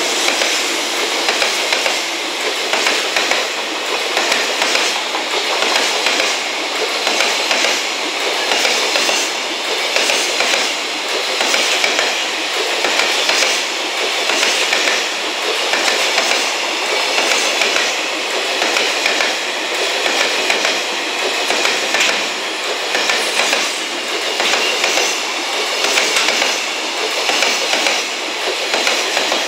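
Container wagons of a 24-car freight train rolling past at speed: a steady clatter of wheels over the rails that swells and dips in a regular beat, about every second and a half, as the wagons go by.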